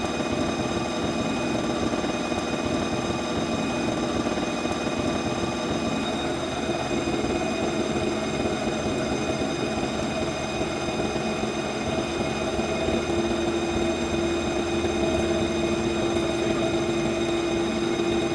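CNC vertical milling machine cutting metal: steady machining noise with a constant high spindle whine, and a lower hum that grows stronger in the last few seconds.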